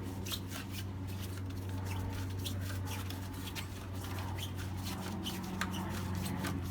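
Spa-side remote cable being pulled by hand through an underground conduit: irregular rustling and scraping clicks as the wire slides and is handled, over a steady low hum.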